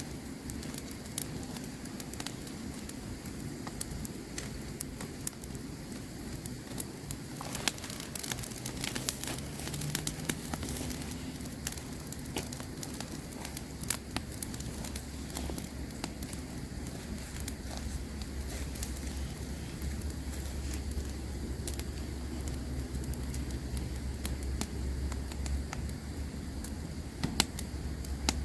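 Campfire crackling, with many irregular sharp pops and snaps of burning wood over a steady low rumble that swells about a third of the way in.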